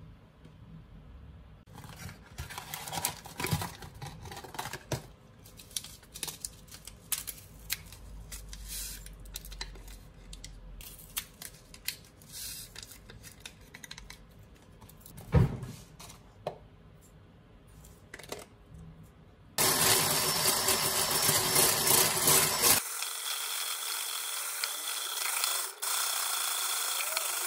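A small utensil clinking and scraping in a ceramic bowl of instant coffee and sugar, then an electric hand blender with a whisk attachment starts about two-thirds of the way in. It runs steadily, whipping dalgona coffee into foam, and its tone changes once partway.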